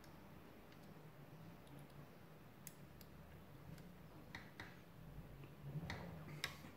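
About half a dozen faint, sharp clicks and light taps from a circuit board and capacitor being handled as the capacitor's leads are fitted into the board, the loudest near the end, over a faint low hum.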